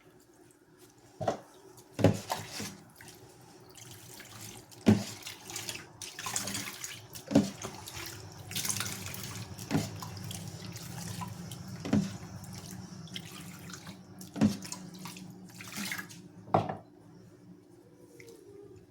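Water running from a sink tap as a puppy is rinsed, swelling and easing, with sharp knocks about every two seconds.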